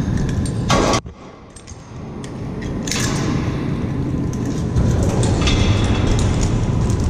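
Metal clinks and clanks of climbing hardware against a steel ladder as someone climbs inside a wind turbine tower, over a low steady rumble. The sound drops sharply about a second in and builds back up.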